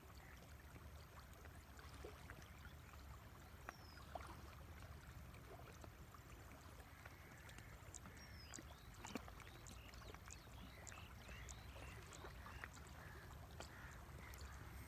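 River water flowing: a faint, steady rush with scattered small splashes and gurgles, and a few brief high chirps over it.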